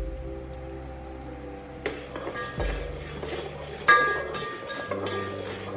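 A metal spoon clinking against a steel pot of sugar and water being heated for syrup, with a few sharp clinks that ring briefly, about two, two and a half and four seconds in. Soft background music plays underneath.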